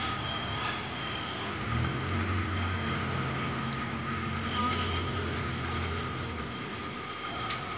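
A motor vehicle engine running with a steady low hum from about two seconds in until about a second before the end, over a steady street background.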